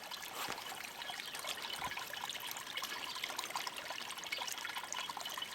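Small pond waterfall trickling steadily, its water fed by a solar-powered pump.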